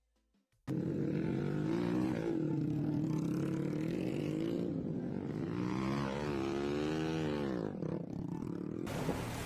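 An engine running, starting suddenly after a short silence, its pitch rising and then falling once about six to seven seconds in.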